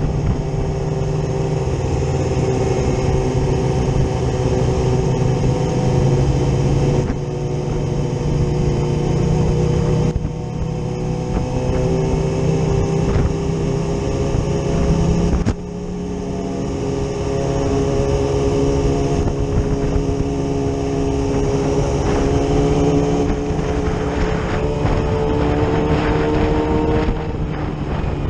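Yamaha R6 inline-four sports bike engine running under way, heard from on the bike, its note climbing slowly and dipping briefly three times as the throttle eases.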